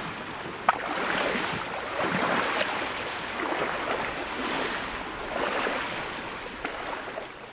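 Logo-intro sound effect of rushing, surf-like noise that swells and ebbs several times. A single sharp click comes under a second in, and the noise fades away near the end.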